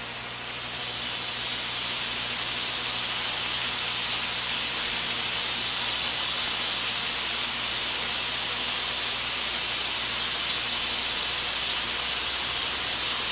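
Steady broadcast static hiss with a faint low hum underneath, building slightly in the first second and then holding even, with nothing in its top end.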